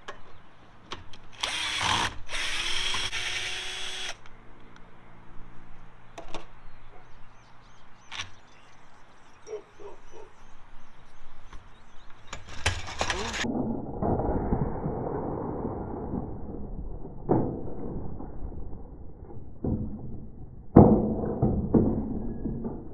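Power drill-driver running in short bursts, backing out the awning motor's mounting bolts, with clicks and knocks of tools and metal parts between runs.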